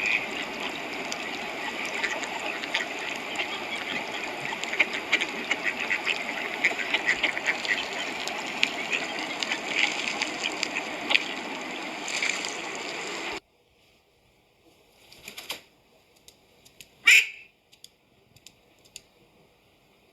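A flock of ducks quacking densely over a steady background noise. About 13 seconds in the sound cuts off abruptly to near quiet, broken by a few faint sounds and one loud single call a few seconds later.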